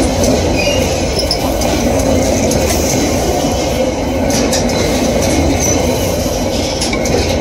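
Freight train of empty ballast hopper wagons rolling past close by: a steady, loud rumble and rattle of wheels on rail, with short high wheel squeals here and there.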